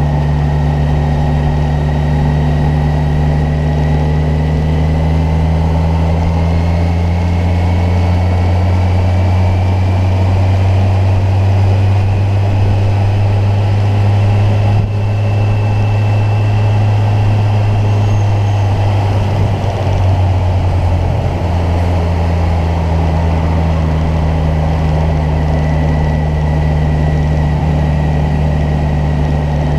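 Kawasaki Ninja 1000's inline-four engine running steadily while cruising, heard from the moving bike over a constant rush of wind and road noise. Its pitch rises slowly through the first half, and there is a brief dip about two-thirds of the way through.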